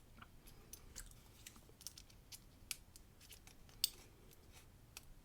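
Faint, scattered small metal clicks and taps of a dimple lock cylinder, its key and a shim being handled while the cylinder is taken apart, with one slightly louder click near the end.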